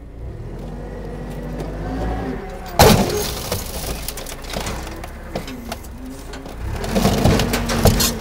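Forklift engine revving as it drives into the side of a fiberglass boat hull. There is one loud sharp crack just before three seconds in as the hull gives. Near the end comes a louder stretch of cracking and crunching as the hull is pushed in further.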